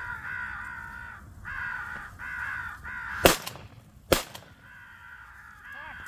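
Crows cawing repeatedly, broken a little past the middle by two shotgun shots less than a second apart, the loudest sounds.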